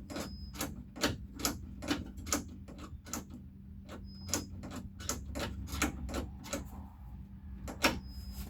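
A run of sharp mechanical clicks, about two to three a second, thinning out in the second half, with one louder click near the end. A steady low hum runs underneath.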